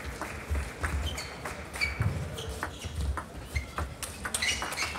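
Table tennis rally: a celluloid ball clicking sharply off the players' rubber bats and the table in a quick, irregular series, with brief shoe squeaks and footwork thuds on the court floor.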